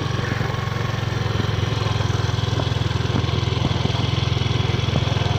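Small motor scooter engine idling steadily with an even putter while the scooter stands still.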